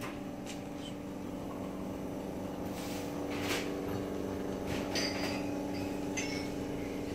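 A steady machine hum at one fixed pitch, with a few faint clinks and short hisses around the middle; it cuts off abruptly at the end.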